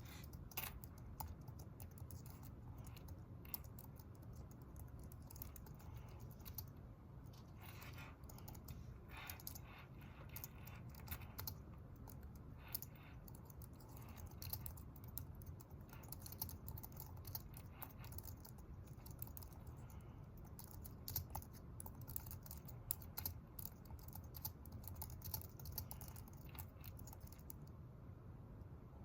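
Typing on a computer keyboard: a faint, irregular run of key clicks throughout, over a steady low room hum.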